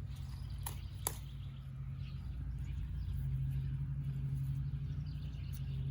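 A steady low hum, like a distant engine, runs underneath, a little louder about halfway through. Two short sharp snaps come about a second in, from flower stems being picked off by hand.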